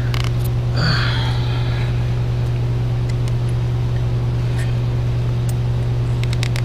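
A steady low hum, with a few faint clicks of hands working a rubber hose onto a T-fitting, the clearest near the end.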